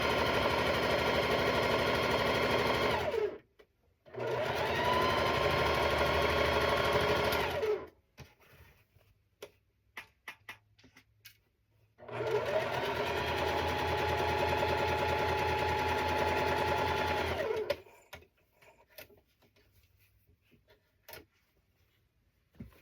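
Electric sewing machine stitching a seam in three runs of a few seconds each, speeding up as each run starts and slowing as it stops, with light clicks from handling the fabric in the pauses between.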